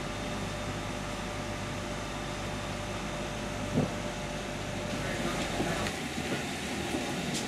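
Steady mechanical drone of a parked airliner and its gate machinery, heard from the jet bridge, with a single knock just before four seconds in. Near the end the low hum drops away and a few light clicks come in.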